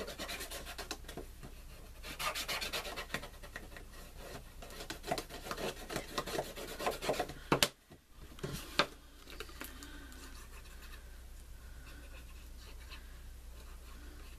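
Cardstock and a paper gift box being handled, pressed and rubbed on a tabletop: scratchy rustling and scraping of paper with small clicks, two sharp knocks a little past halfway, then quieter handling.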